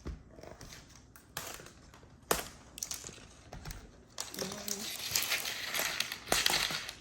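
Packaging on a toy surprise egg being peeled and torn off by hand, crinkling and crackling. There is a sharp snap about two seconds in and a louder, denser stretch of crinkling in the second half.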